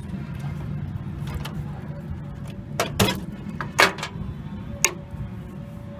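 Sharp clicks and clinks from handling a desktop computer's internal parts and wire connectors, a few in quick succession about halfway through, over a steady low hum.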